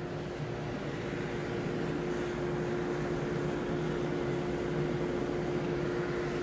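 Forge blower running steadily, a constant hum over the rush of air feeding the fire while the workpiece heats.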